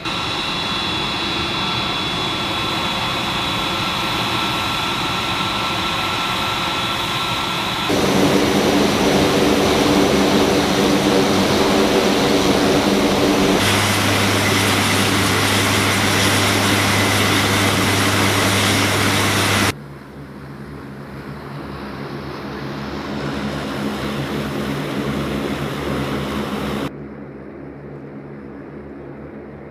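Aircraft engines running on a flight line, in a series of shots that cut abruptly from one to the next. A steady high whine sits over the engine noise at first; it gets louder about eight seconds in and drops to a quieter level about twenty seconds in.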